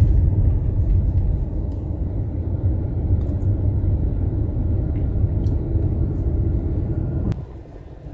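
Steady low rumble of a Hyundai car's engine and tyres heard from inside the cabin while driving. Near the end it drops suddenly to a much quieter cabin hum.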